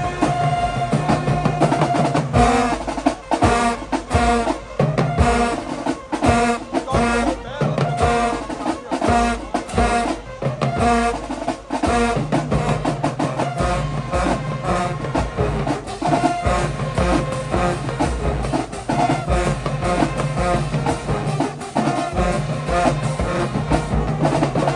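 Marching band playing: horns holding and moving through a tune over a driving drumline beat. The music cuts off sharply right at the end.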